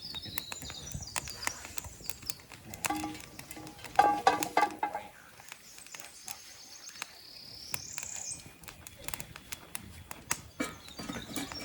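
A songbird singing a high, rising buzzy phrase twice, several seconds apart, over scattered clicks and light knocks. There is a brief louder pitched sound about four seconds in.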